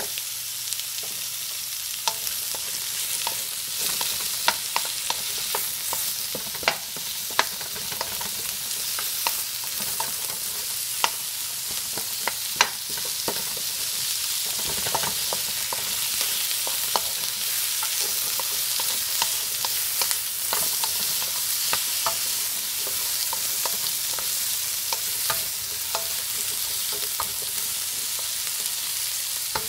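Chopped onion, green capsicum and garlic sizzling in hot oil in a wok while being stirred with a wooden spoon: a steady hiss with frequent short, sharp clicks, busiest in the first half.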